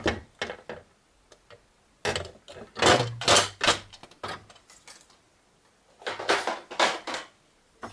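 Plastic parts of an HP Photosmart C3180 printer-scanner knocking and clattering as the scanner section is handled and lifted off. The sounds come in three clusters of clicks and knocks: at the start, from about two to four seconds in, and about six seconds in.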